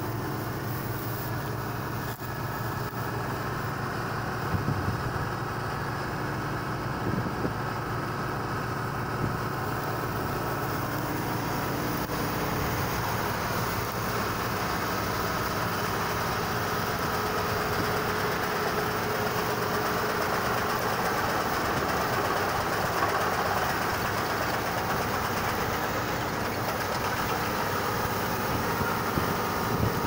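New Holland 1530 combine harvester running steadily while harvesting: its engine together with the rattle of the cutting and threshing machinery.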